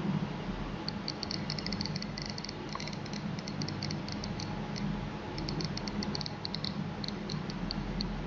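Smartphone Geiger counter ticking through its speaker: short high clicks at an irregular, fairly quick rate, each tick a detected gamma ray from the radioactive luminous dial of an old alarm clock. The ticks start about a second in and thin out briefly midway, over a steady low hum.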